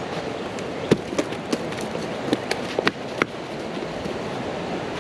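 A quick run of about eight sharp clicks and taps over a little more than two seconds, over a steady background rush.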